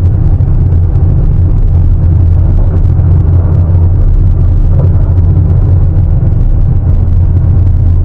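Heavy diesel engine of a large hydraulic excavator running steadily under load, a loud low rumble with no change in pitch.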